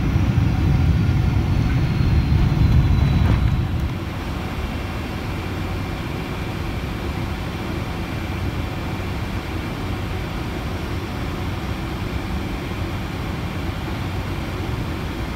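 Cabin noise of a Rolls-Royce-powered Boeing 747-400 just after landing: a loud, deep rumble of the landing roll with a faint whine sliding down in pitch, which drops away about four seconds in to a quieter, steady hum as the jet slows on the runway.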